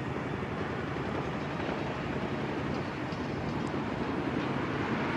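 Steady outdoor rumble of distant road traffic, growing slightly louder toward the end.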